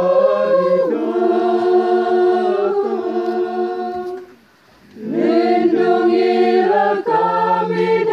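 A choir singing a slow unaccompanied hymn in long, held notes in harmony. It breaks off for under a second about halfway through, then comes back in.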